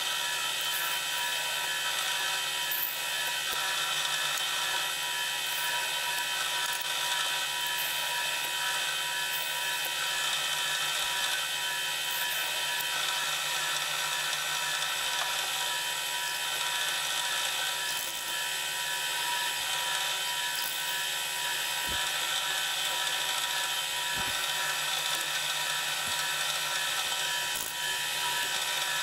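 Drilling machine running with a thin drill bit in the chuck, drilling small holes through a metal buffer beam brace and into the frame behind it: a steady whine, with a couple of light knocks near the end.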